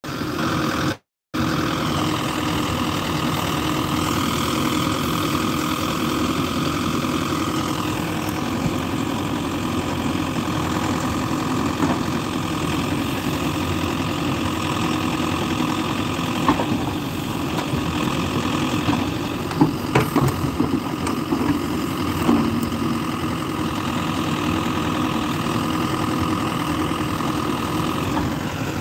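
Diesel engine of a Mahindra EarthMaster SX backhoe loader running steadily while the backhoe digs, its whine climbing in pitch about four to eight seconds in. A few sharp knocks, typical of the bucket striking soil and stones, come about two-thirds of the way through.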